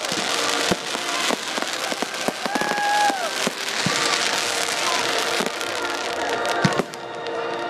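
Aerial fireworks going off: a dense crackling with many sharp pops and bangs in quick succession. A short tone rises and falls about three seconds in.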